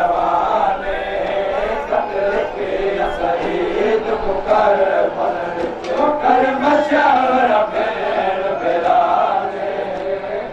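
Many men's voices chanting a noha, a Shia lament for Imam Hussain, together and loudly with no break.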